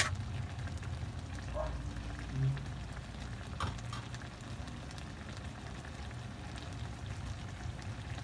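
Eggplant and pork simmering in sauce in an aluminium wok, a steady fine crackle and bubbling, with a few light knocks in the first four seconds.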